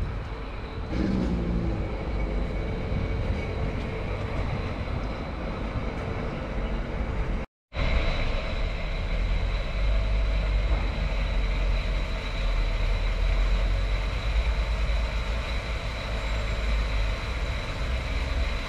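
Outdoor town ambience dominated by a steady low rumble, with no voices. The sound drops out completely for a moment about seven and a half seconds in.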